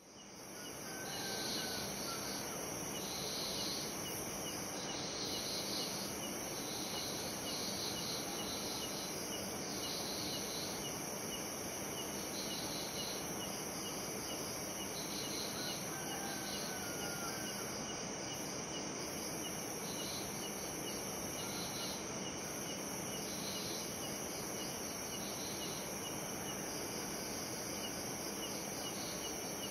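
A steady chorus of crickets chirping, fading in at the start and then holding at an even level.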